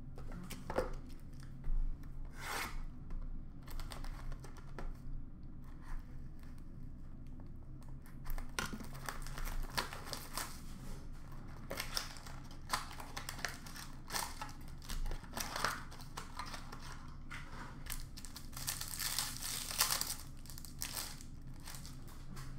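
Trading-card packs being torn open and their foil and plastic wrappers crinkled, with cards handled: a run of short rips and rustles, busiest near the end.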